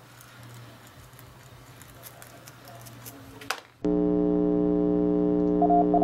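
Faint clicks of hands working a circuit board. About four seconds in, a loud steady electronic hum of several tones starts suddenly. Near the end, a Morse code tone is keyed on and off in dots and dashes over it.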